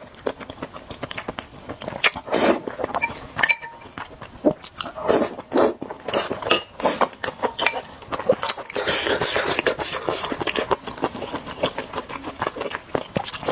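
A person chewing and biting food close to the microphone, with many irregular short wet mouth clicks and a few longer noisy bursts.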